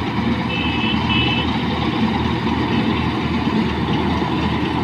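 Kartar 4000 combine harvester running steadily as it cuts paddy, its engine giving a continuous drone. Two short high beeps sound about half a second in.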